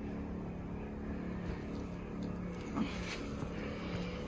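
Steady low machine hum with several fixed pitches, unchanging throughout, with a faint brief sound about three seconds in.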